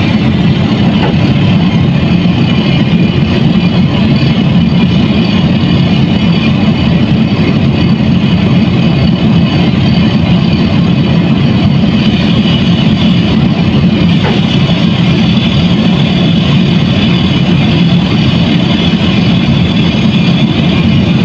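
Heavy diesel machinery running steadily at a quarry, a dense continuous engine noise, its upper hiss growing brighter about halfway through.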